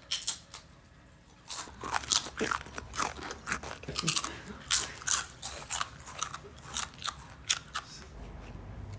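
Irregular crunching and crackling, several short sharp sounds a second, starting after a brief lull about a second and a half in.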